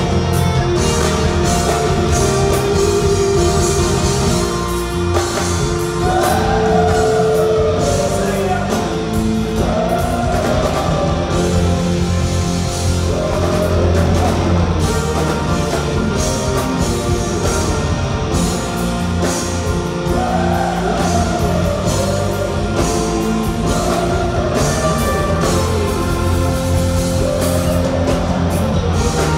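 A rock band playing live in a concert hall: bass and drums under a lead line of wavering, bending notes, heard from the audience with the hall's echo.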